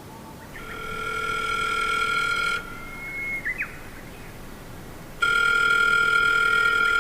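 Telephone ringing: two rings of about two seconds each with a steady electronic tone, the first swelling in and the second louder.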